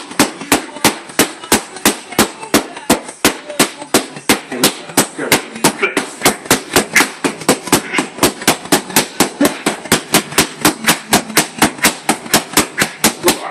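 Boxing gloves striking focus mitts in a fast, even rhythm, about four punches a second, in a speed drill.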